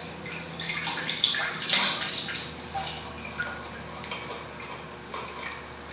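Water splashing in a glass aquarium tank as hands move a submerged light-bulb socket and lift it out, with water dripping; most of the splashing falls in the first couple of seconds.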